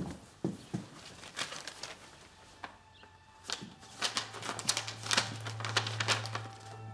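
A few soft thumps, then a sheet of paper rustling and crinkling as a letter is picked up and unfolded, the crackles coming thick and fast in the second half. A low steady music drone comes in about halfway through.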